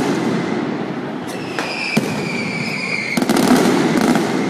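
Mascletà firecrackers and aerial bangs going off: single sharp bangs, then a dense rapid volley a little past the middle, with a steady high whistle between the volleys.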